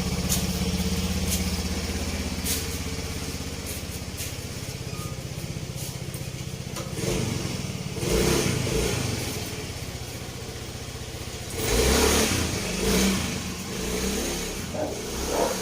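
Yamaha Mio i 125 scooter's single-cylinder four-stroke engine, freshly top-overhauled, idling steadily for about seven seconds, then revved up in several bursts.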